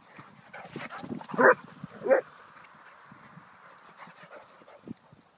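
Hungarian Vizsla giving two short, loud barks about half a second apart, roughly a second and a half in.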